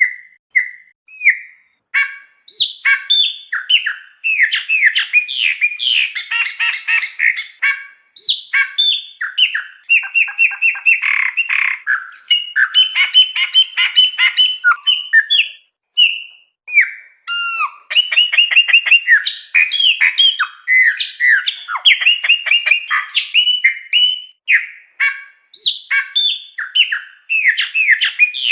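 Chopi blackbird (pássaro-preto) singing a long, varied song: whistled notes, rapid trills and chattering phrases in bouts separated by short pauses, over a clean, quiet background.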